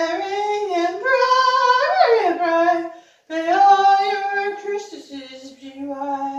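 A solo voice singing without accompaniment, holding long notes with pitch slides, breaking off briefly about three seconds in before going on.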